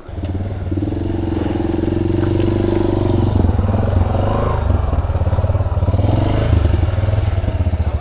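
Single-cylinder motorcycle engine running at low revs as the bike crawls over a rocky gravel trail, its pulsing note rising and easing slightly with the throttle.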